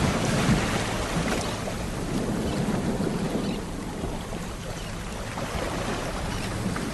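Sea waves washing on a shore: the wash of a broken wave fading away, quieter through the middle, with the next wave building near the end.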